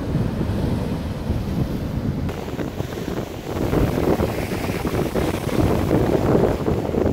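High-tide waves breaking and washing against a concrete sea wall, with wind buffeting the microphone throughout. The rush of surf grows louder from about halfway through.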